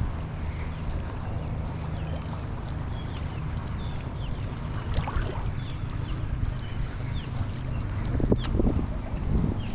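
A steady low motor hum with wind noise on the microphone, a scatter of short high chirps, and a louder stretch with a few sharp clicks near the end.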